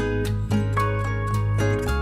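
Background music: plucked-string instrumental, with notes struck in quick succession over a sustained bass.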